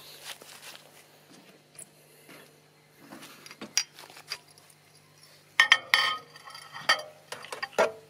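Glass light bulbs clinking against each other and onto a microwave's turntable, a quick run of sharp, ringing clinks in the last few seconds. Before that, only faint scuffs of flip-flop footsteps on grass.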